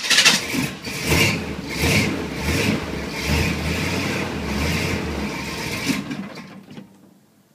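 1986 Chevrolet K5 Blazer's 350 V8, with headers and Flowmaster exhaust, catching and running rough in uneven surges as the throttle is worked. It then dies away near the end. It runs badly on a half-plugged Quadrajet carburetor and nasty gas that the owner thinks is probably half water.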